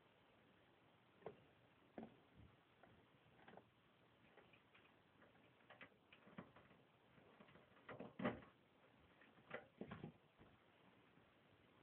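Faint, irregular clicks and scratchy taps of a hamster moving about its cage, with a louder cluster of taps about eight seconds in and another near ten seconds.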